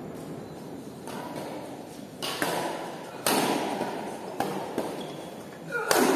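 Badminton rackets striking a shuttlecock in a doubles rally: sharp smacks about a second apart, echoing in a large gym hall, with a short rising squeak just before the last and loudest hit.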